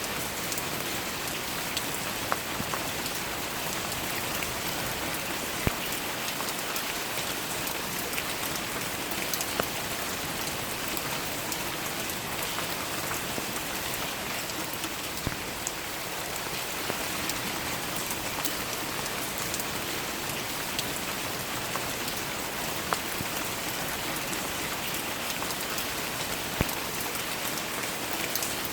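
Steady rain falling on flower petals, an even hiss with now and then a louder single drop tapping.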